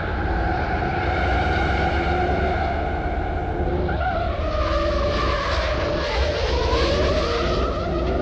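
Ford Mustang's V8 engine revving hard while its tyres screech in a sideways skid, the screech strongest in the second half.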